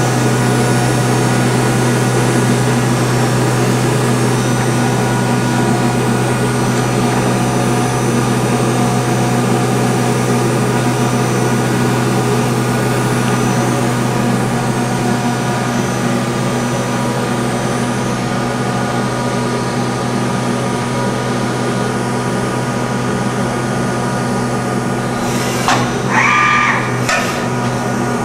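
Okuma & Howa Millac 438V CNC vertical machining center running its spindle at 7,500 RPM in a test cycle: a steady machine hum with several fixed tones. The spindle itself is just barely heard, a sign of a spindle in great condition. Near the end, a few short sounds with clear ringing tones break in.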